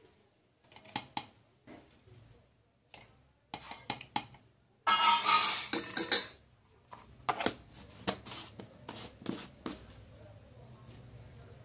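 Steel spoon scraping and clinking against a plastic jar and stainless steel bowls as powder is scooped out and tipped in. There is a string of short clicks, then a louder scraping stretch about five seconds in, and scattered clinks after it.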